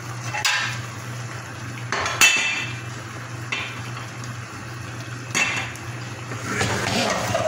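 A kitchen utensil clinking and scraping against cooking pots, several separate knocks with the loudest about two seconds in, over a steady low hum.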